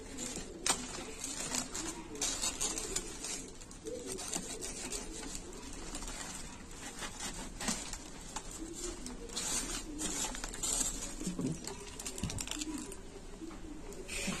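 Rustling, crinkling and crackling of a torn cardboard parcel and loose thermocol packing pieces as hands dig through them, with scattered sharp clicks.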